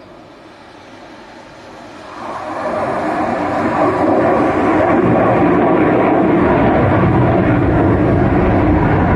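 Military jet flying past: its engine noise swells sharply about two seconds in and then stays loud and steady.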